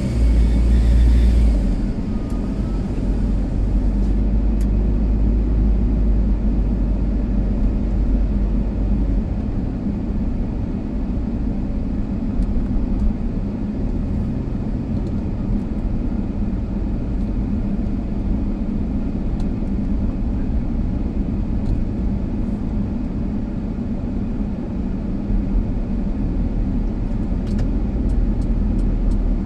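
A car driving: a steady low rumble of engine and tyre noise, a little louder for the first couple of seconds.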